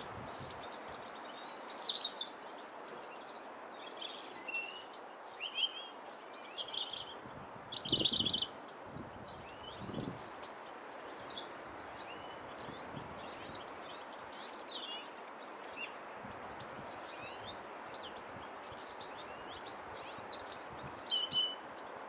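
Small songbirds calling: short high chirps and twittering notes come on and off, loudest about two seconds in and again near eight seconds, over a steady outdoor hiss. A couple of soft low thumps come near the middle.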